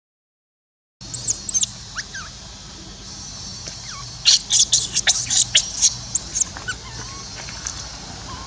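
Infant macaque crying in distress: short, very high-pitched squealing cries, a pair about a second in, then a quick run of them between about three and five and a half seconds.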